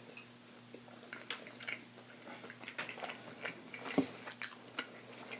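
Close-miked chewing of a hot barbecue chicken wing: soft, wet smacks and clicks of the mouth, irregular, with one louder smack about four seconds in.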